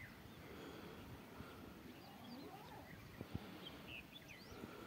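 Faint birdsong: scattered short chirps and whistles from several birds, over a faint low background hiss.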